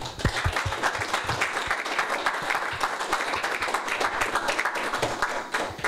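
Audience applauding: dense, steady clapping that dies away near the end.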